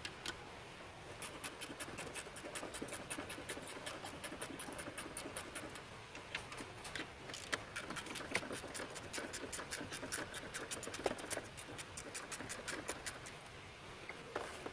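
Ratchet clicking as strut mount nuts are run off: a quick, even run of clicks, about five or six a second, from about a second in until near the end.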